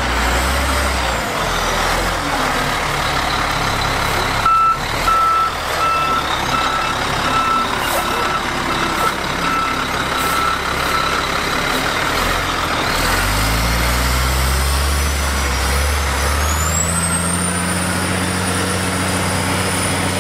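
Oshkosh MK23 MTVR 6x6 truck's 12-litre Caterpillar diesel running at low revs, with a clunk about four seconds in followed by a reverse alarm beeping about twice a second for several seconds. About 13 seconds in the engine revs up and holds under load as the truck climbs the sandy hill, with a high whine rising near the end.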